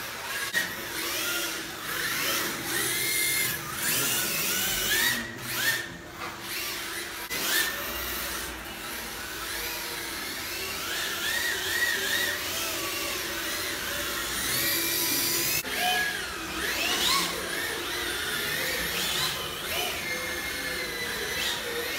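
Electric motors of RC drift cars whining, their pitch rising and falling over and over as the cars speed up and ease off through the corners, over a steady high hiss.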